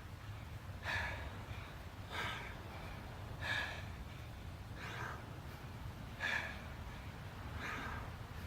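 A person breathing hard from exertion during push-up to sit-out reps: a heavy breath about every second and a half, over a low steady hum.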